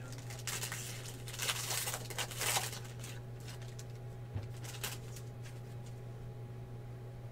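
Trading cards and clear plastic holders being handled: soft rustling and sliding in the first three seconds, then a few light clicks, over a steady low hum.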